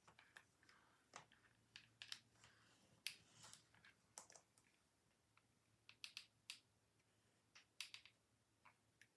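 Near silence with faint, irregular clicks and taps from a hot glue gun and a plastic dome being handled as the dome is glued down onto card.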